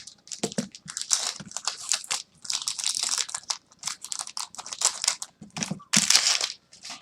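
Foil trading-card pack wrapper crinkling and tearing as it is opened: an irregular run of sharp crackles that stops at the end.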